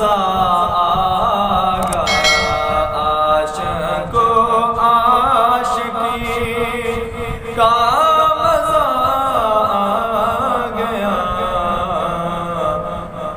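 A male voice singing an Urdu naat in long, wavering held notes, a new phrase starting about seven and a half seconds in.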